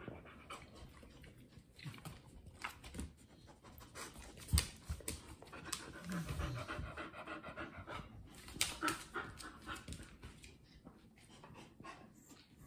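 A heavily pregnant dog near term, about to give birth, panting steadily in quick breaths. A single sharp knock sounds about four and a half seconds in.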